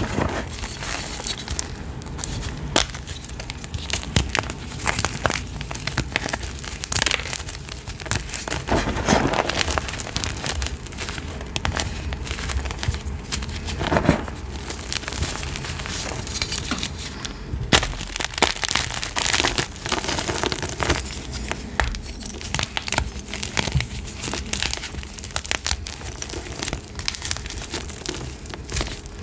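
Chalk being crushed: a continuous, irregular run of crunching and crackling, with a few louder crunches along the way.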